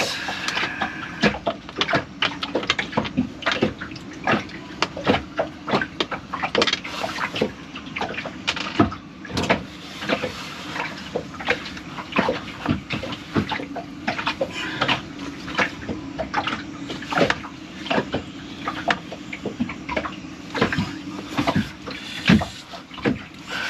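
Hands working the parts of a bilge pump repair: irregular clicks, knocks and scraping of parts being fitted and handled, many a second, over a steady low hum.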